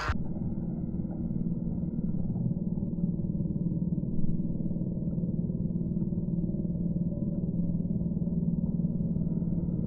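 HO scale model train running along the layout's track: a steady, muffled low rumble with a steady hum, and a brief knock about four seconds in.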